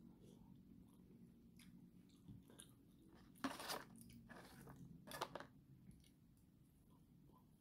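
Quiet eating sounds of a person chewing food, with two louder brief crunchy noises about three and a half and five seconds in, over a low steady hum.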